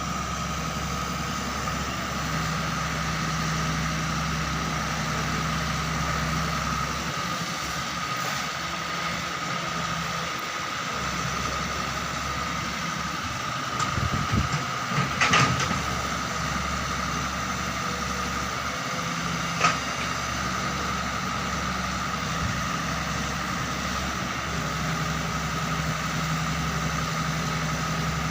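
Doosan 140 wheel excavator's diesel engine running steadily, with a burst of clattering knocks about halfway through and one sharp knock a few seconds later as it works gravel.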